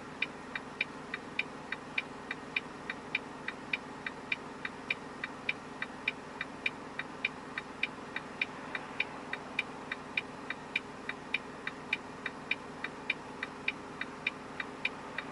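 A truck's turn-signal indicator ticking evenly, about three ticks a second, in the cab over the steady hum of the running engine.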